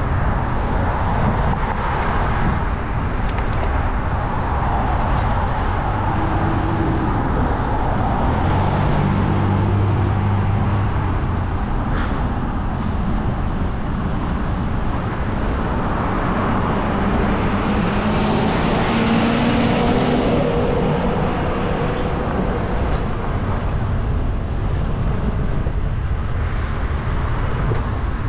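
City traffic and road noise heard from a moving bicycle: a steady rush, with motor vehicle engines swelling as they pass, once about eight to eleven seconds in and again around eighteen to twenty-one seconds.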